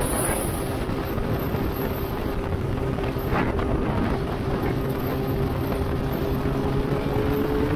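Motorcycle riding at steady cruising speed: a steady engine note under heavy wind rush on the microphone, the engine pitch rising slightly near the end, with one brief knock about three seconds in.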